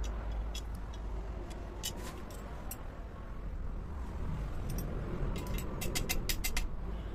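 Scattered light metallic clicks as a scooter's steel handlebar is worked free of its mount, ending in a quick run of clicks about six seconds in, over a steady low rumble.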